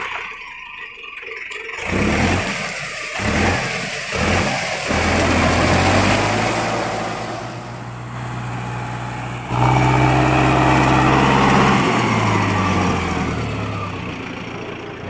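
Mahindra Arjun Novo 605 DI tractor's diesel engine revved in three short blips, then running steadily while pulling a rotavator through paddy mud. It gets louder about ten seconds in and eases off toward the end.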